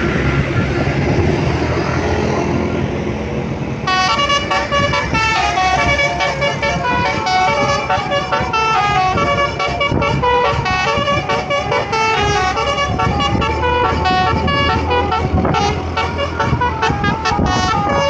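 A bus's multi-tone 'basuri' telolet horn plays a quick tune of changing notes, starting about four seconds in and running on over the rush of wind and traffic. Before it, only a dense rushing road noise.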